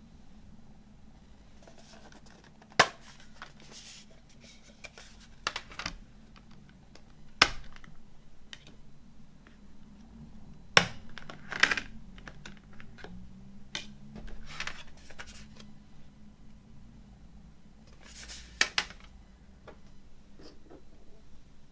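Handling of a movie disc box set and its packaging: a handful of sharp clicks and taps, some in quick pairs, with softer rustling and scraping between them.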